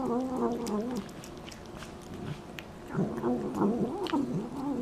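A cat eating wet food from a plate: wet chewing and smacking clicks throughout, with wavering, growly vocal murmurs during the first second and again from about three seconds in.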